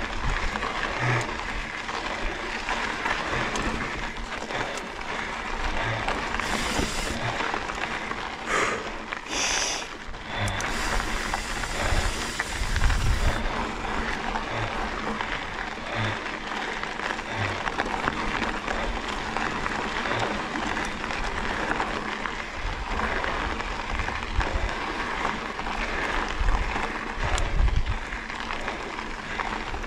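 Mountain bike rolling over a dirt trail: tyres grinding on the ground and wind rushing over the camera microphone, with irregular low thumps as the bike hits bumps.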